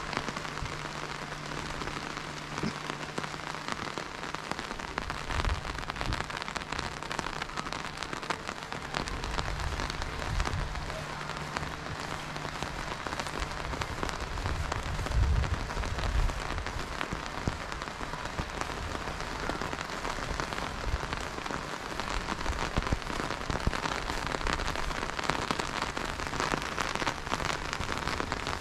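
Steady rain falling, a dense even hiss of fine drops, with a faint low hum through the first half that stops about halfway.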